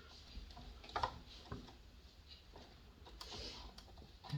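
Faint, scattered clicks and taps of a RAM module being lined up and guided into a motherboard memory slot, the clearest about a second in.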